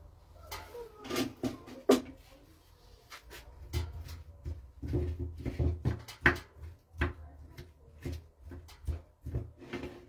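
Irregular clicks, knocks and scrapes of a knife working through soft white cubes in an earthenware dish, mixed with the handling of food on a table.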